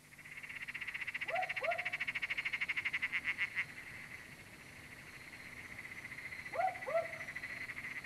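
Dusk chorus of calling frogs: a high, fast-pulsing trill that fades in and is loudest for the first few seconds, with two pairs of short rising calls, one about a second and a half in and one near the end.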